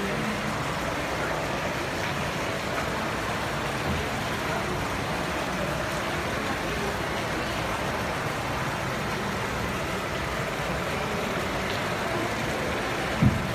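Steady background noise of a large indoor hall with a wash of distant crowd voices, and a single knock near the end.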